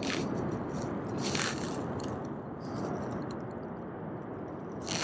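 Gloved hands handling a spinning rod and reel, making several brief, irregular scrapes and rustles over a steady rushing background.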